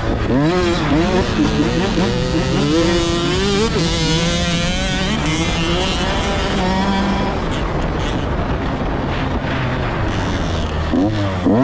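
Dirt bike engine revving hard under the rider, its pitch sweeping up and down quickly as the throttle is worked. About two-thirds of the way through, the engine note drops back and blurs into rumble, then it revs sharply up again near the end.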